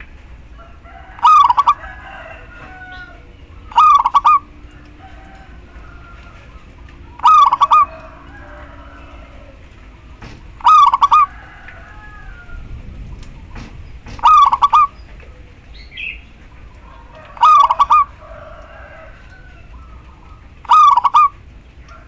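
Female zebra dove calling: a short, loud burst of a few quick notes, given seven times at about three-second intervals. Fainter bird chirps sound between the calls.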